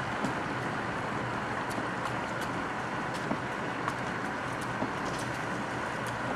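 Steady running noise of a slowly moving car, tyres on road and a low engine hum, with a few faint scattered ticks.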